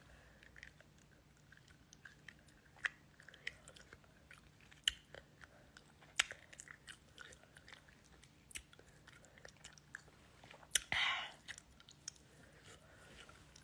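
Close-up mouth sounds of someone chewing wax candy: faint, wet, irregular clicks and smacks, with a brief louder hiss about eleven seconds in.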